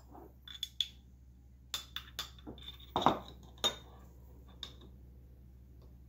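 Metal measuring spoon clinking and tapping against a glass jar as minced garlic is scooped out: a scattered series of light clicks and clinks, the loudest about three seconds in.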